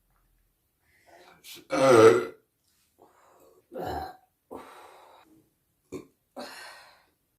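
A woman burping: one loud, long burp about two seconds in, a shorter burp about four seconds in, then smaller burps near the end.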